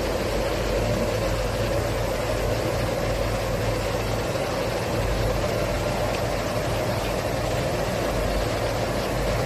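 Steady hum of running insulating-glass line machinery: a low hum under a constant mid-pitched whir, with no change in level or pitch.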